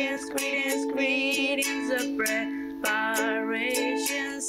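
Children's song about the parts of a recipe: a voice singing in English with wavering held notes over a plucked-string accompaniment.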